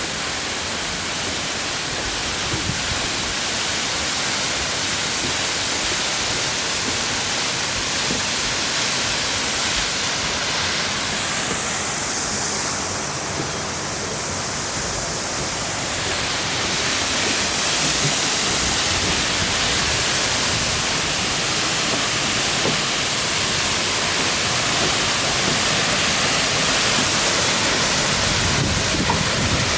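Todoroki Waterfall's falling water, a steady rushing noise that grows a little louder about halfway through.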